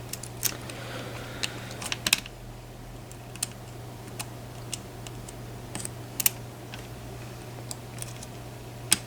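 Irregular small metal clicks and ticks of a lock pick and tension wrench working the pins of a pin-tumbler challenge lock, over a steady low hum.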